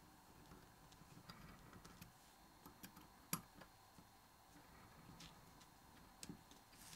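Faint, scattered metal clicks and ticks of an Allen key working small screws into a microphone's metal body, with one sharper click about halfway through.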